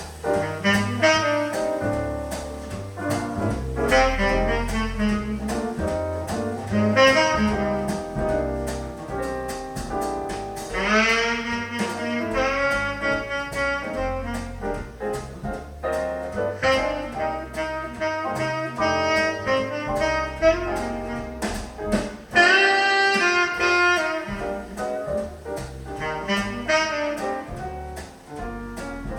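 Jazz with a saxophone lead over piano and bass, played from a record on an Acoustic Signature Tornado Neo turntable through Raidho 1.6X loudspeakers.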